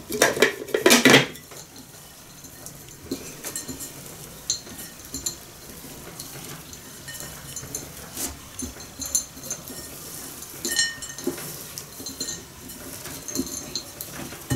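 A metal spoon scraping and clinking against a ceramic bowl of crushed nuts and date paste, in small scattered clicks with a few short ringing clinks. A louder clatter in the first second comes as the plastic lid is handled on the blender bowl.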